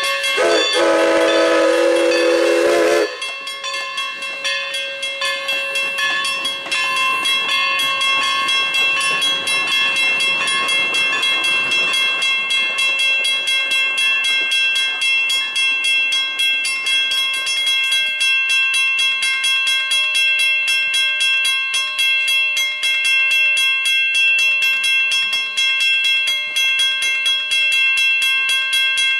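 Steam whistle of Everett Railroad No. 11, a 1920 Mogul steam locomotive, blowing one chord-like blast with a hiss of steam that cuts off about three seconds in. After it the locomotive bell rings steadily with a regular beat.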